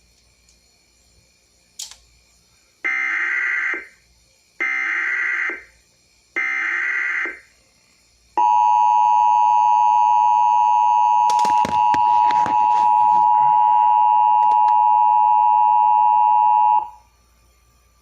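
Emergency Alert System SAME header: three bursts of warbling digital data tones, each about a second long, followed by the steady two-tone EAS attention signal held for about eight seconds, with a few crackles of static partway through.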